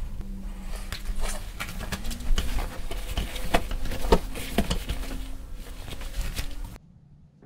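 Rubber-gloved hands handling and smoothing a wet, dye-soaked fleece sweatshirt: soft wet cloth sounds with many light clicks and taps. It cuts off abruptly near the end.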